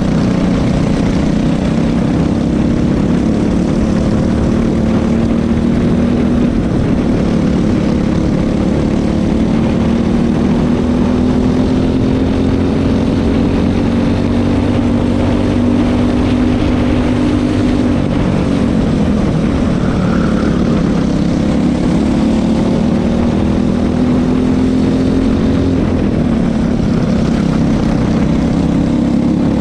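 Racing kart's single-cylinder engine running hard at high revs, heard from onboard. Its pitch climbs slowly down the straights and drops sharply where the driver lifts off for corners, once just past halfway and again near the end, before climbing again.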